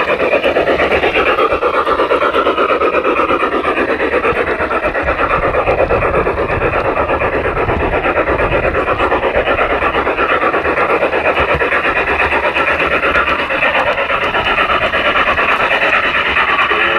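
Garden-railway model train running along the rails, its wheels making a rapid, even rattling clatter, heard close up from a camera riding on the train.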